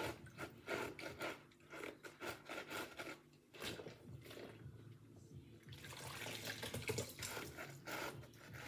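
A soapy sponge scrubbing a silicone pop-it fidget toy over a sink of water, with irregular wet rubbing, splashing and dripping.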